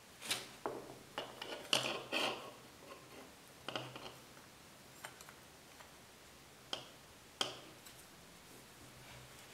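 Antique hand-forged iron areca nut cutter being handled: short metallic clicks and clinks of the hinged blade and jaws as an areca nut is fitted between them. A quick run of clicks comes in the first couple of seconds, then a few more scattered single clicks.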